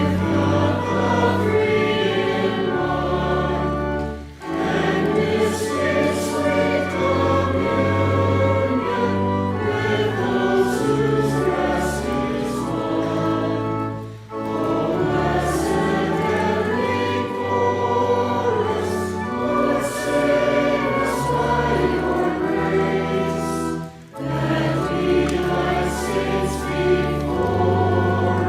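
Choir singing a hymn in sustained chords, with a short break between phrases about every ten seconds.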